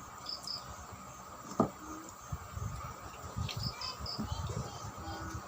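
Close chewing and mouth sounds of someone eating rice and ripe mango by hand, with a single sharp click about a second and a half in. Short high insect chirps repeat in twos and threes in the background.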